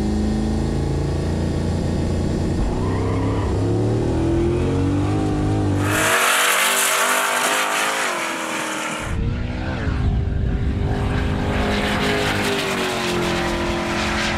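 Turbocharged LS V8 in a Mazda RX-7 under hard acceleration on a runway drag pass, its note climbing steadily in pitch. About six seconds in, a loud hiss takes over for some three seconds, then the engine note returns.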